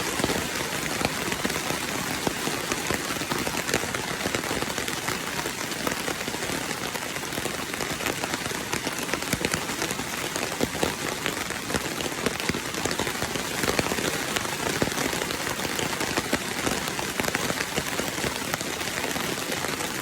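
Steady rain falling: a dense, even hiss full of tiny drop ticks.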